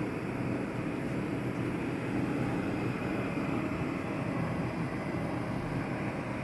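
Steady low hum and rumble of a running machine, even and unbroken.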